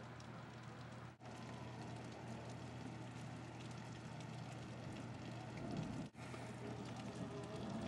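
Steady rain falling during a thunderstorm, an even hiss over a low steady hum. The sound drops out briefly twice, about a second in and again about six seconds in.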